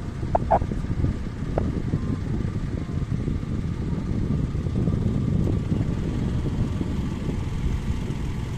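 A motor boat under way at sea: a steady low rumble of its engine mixed with the rush of water.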